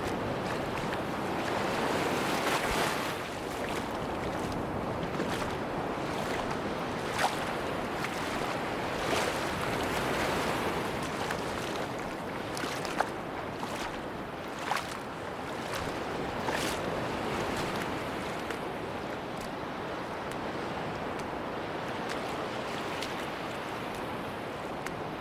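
Ocean surf washing onto a beach: a steady rush of waves that swells and eases every few seconds. A few short, sharp ticks sound here and there over the surf.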